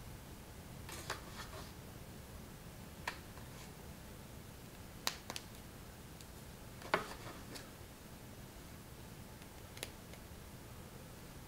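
Plastic Mega Bloks building bricks clicking and tapping as they are handled and fitted together: scattered single sharp clicks a second or two apart, the loudest about seven seconds in, over a faint steady hiss.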